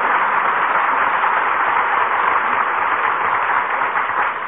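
Studio audience applauding, a steady even clatter that begins to die away near the end, heard through a narrow-band 1944 radio broadcast recording.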